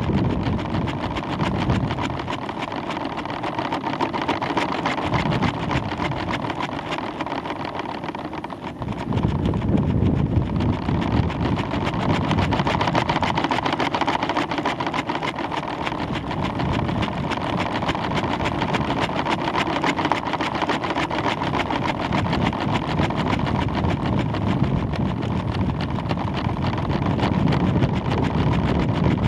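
Wind buffeting the microphone of a camera hanging under a climbing weather balloon: a steady, rumbling rush. The low rumble eases for a few seconds and comes back stronger about nine seconds in.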